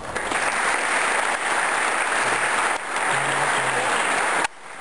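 Audience in a hall applauding, a dense steady clapping that cuts off abruptly near the end.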